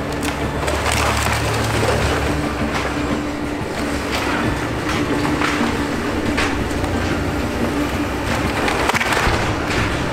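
Doosan excavators' diesel engines running steadily while a grapple crushes and pulls apart splintered demolition lumber. Irregular sharp cracks and snaps of breaking wood sound over the engine.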